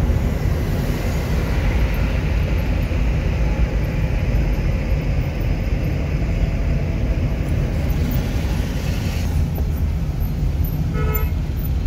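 Steady low rumble of engine and road noise from a vehicle driving in city traffic, with a brief car horn toot near the end.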